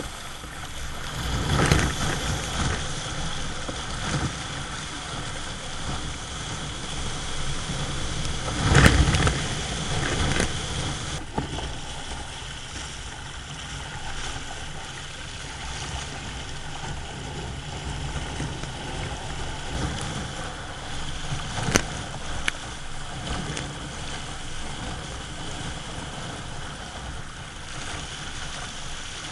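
Water rushing and splashing along a sea kayak's hull as it surfs small waves, heard close up from a deck-mounted camera, with a few louder surges of splashing.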